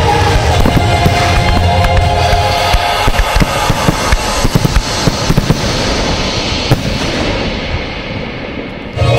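Fireworks going off in quick succession, many sharp cracks and bangs over loud music, the cracks thickest in the middle. Near the end the sound thins out, then the music comes back loud.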